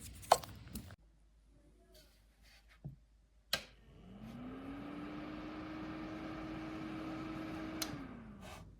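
A switch clicks and a small ceramic space heater's fan spins up, its hum rising in pitch, runs steadily with a rush of air for about four seconds, then clicks off and winds down. The heater still runs even though its switch melted in a fire.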